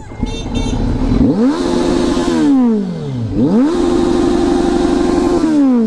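Superbike fitted with an aftermarket exhaust, revved twice in neutral. Each time the engine note climbs quickly, holds high for about a second, then falls back to idle. The exhaust is a non-stock modification that police have judged too loud.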